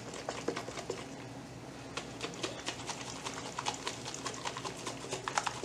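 Lidded jar of overnight-oat mixture being shaken by hand: a run of quiet, irregular clicks and knocks as the contents and jar move, a little stronger near the end.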